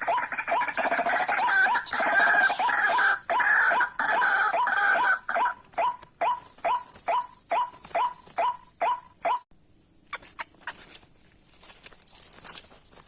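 White-breasted waterhens calling: a rapid, even series of loud croaking notes, about three a second, with more calls overlapping them for the first few seconds. The calls cut off abruptly after about nine seconds. A steady high insect buzz runs under the later calls and comes back near the end.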